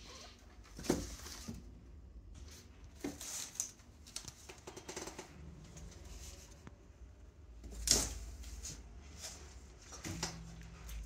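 Two cats scuffling, one swatting at the other: irregular soft knocks, rustling and scratching of paws and claws on a cardboard scratcher, with the loudest knock about eight seconds in.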